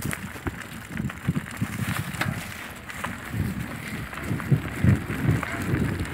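Mountain bike ridden fast over a dirt forest singletrack: tyres on the trail with irregular low thumps and clattering as the bike and camera jolt over bumps.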